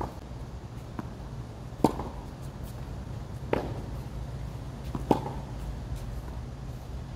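Tennis ball struck by a racket during one-handed backhand groundstrokes: a sharp pop about two seconds in and another about five seconds in, with a softer hit or bounce between them, over a steady low rumble.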